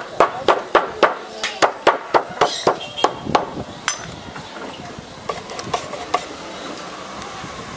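A hammer tapping a huarache sole on a metal shoe last, about four sharp strikes a second, stopping about three and a half seconds in. A few lighter taps follow later.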